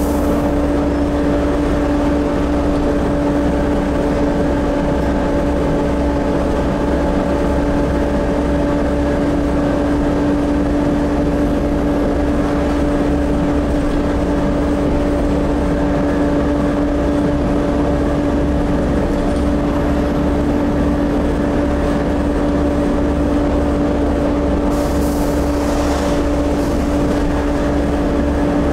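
Volvo B7TL double-decker bus driving at a steady pace, heard from the upper deck: engine drone under a constant loud whine from the cooling fan. A brief hiss comes near the end.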